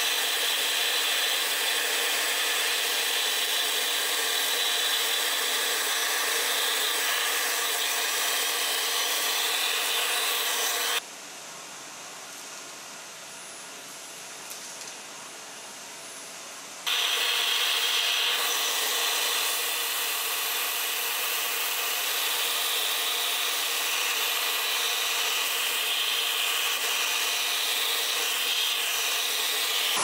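Vacuum cleaner running through a homemade cyclone separator while it sucks up table-saw sawdust: a loud, steady rushing hiss over the motor's steady hum. About a third of the way in it drops much quieter for about six seconds, then comes back to full level.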